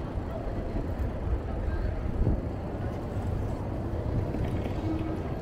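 Steady rumble of city street traffic, heard from a moving bicycle, with no single event standing out.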